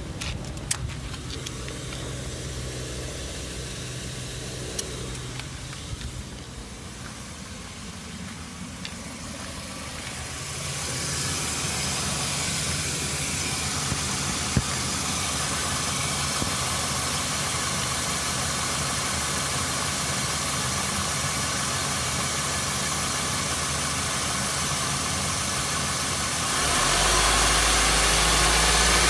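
Nissan HR16DE 1.6-litre four-cylinder engine running under a knock test, getting louder about ten seconds in and louder again with a deeper note near the end. This engine type is reported to knock at certain rpm.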